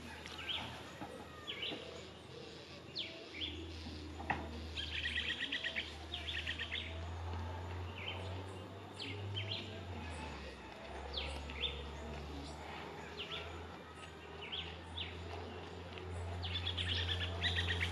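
Wild birds chirping and calling, with a fast trill about five seconds in and again near the end, over a low steady hum.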